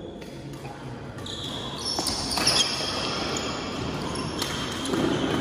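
Badminton doubles rally: sneakers squeaking on the court floor, with a few sharp racket strikes on the shuttlecock.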